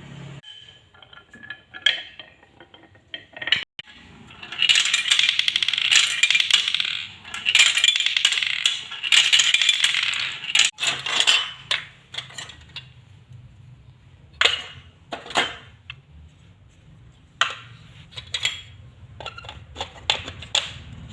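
Marbles clattering through a marble run tower: a few separate clicks, then several seconds of dense, rapid rattling in the middle, then scattered clicks and short rattles again.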